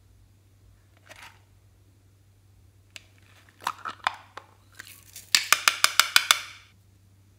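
A plastic bell-shaped ornament case being prised open by hand: a few scrapes and sharp clicks, then a quick run of about nine loud plastic clicks as the two halves come apart.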